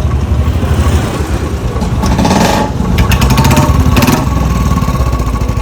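Royal Enfield Bullet motorcycle's single-cylinder engine running, with the rough tick-tick noise its owner complains about.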